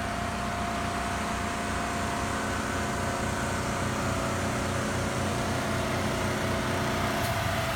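An engine idling steadily, an even low hum with a faint steady whine above it.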